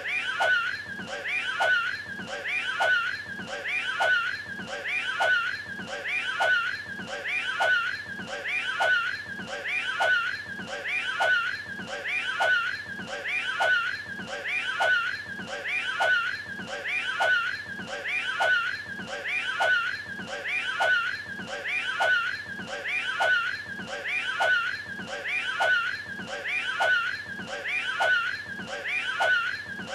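A short comic voice clip of retching, as if throwing up a hairball, looped without a break. It repeats a little faster than once a second.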